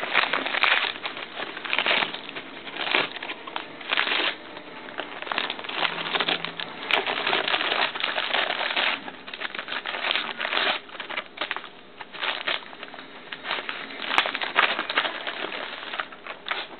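Gift wrapping paper crinkling and tearing in irregular bursts as a dachshund bites, pulls and shakes it.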